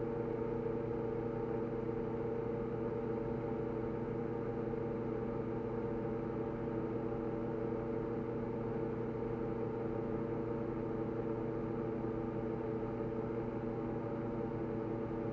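A steady machine hum made of several held tones, unchanging throughout.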